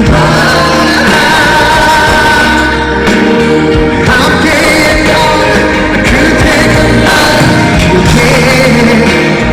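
Live pop song with a male lead vocal singing over a full band backing.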